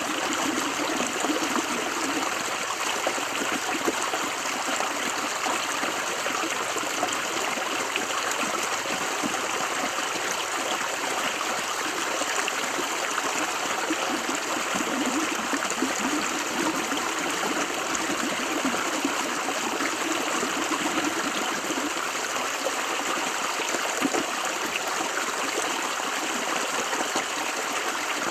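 River water running over rocks: a steady rushing and babbling flow with no breaks.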